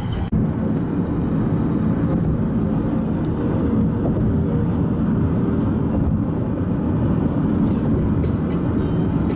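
Steady road noise inside a moving car at highway speed: a low rumble of tyres and engine.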